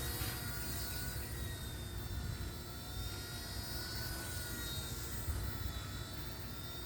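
Firefox C129 flybarless micro RC helicopter in flight: a steady high electric motor and rotor whine whose pitch wavers slightly as the throttle changes.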